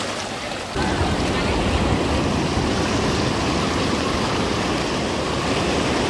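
Shallow surf washing in and swirling around in a steady rush of water, growing louder about a second in.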